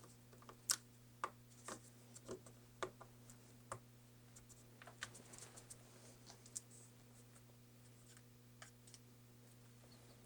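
Scattered light clicks and taps of small tools and parts being handled on an opened MacBook Pro laptop during reassembly, over a faint steady hum. The clicks thin out after about seven seconds.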